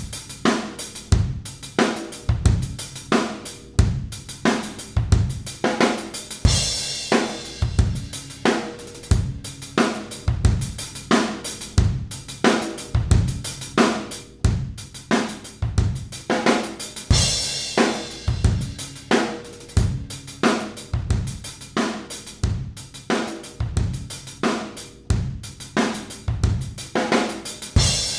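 A looped drum-kit groove, recorded with a single Neumann U87 microphone, run through an FET compressor: steady kick, snare and hi-hat hits, with a crash cymbal about every ten seconds as the loop repeats.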